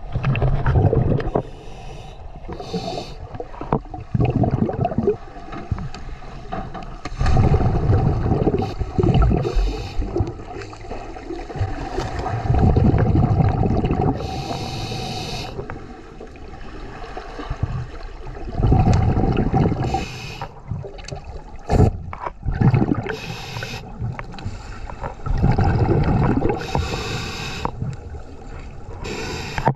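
Scuba regulator breathing heard through an underwater camera housing: a low gush of exhaled bubbles every few seconds, with a short hiss of inhalation between the exhalations.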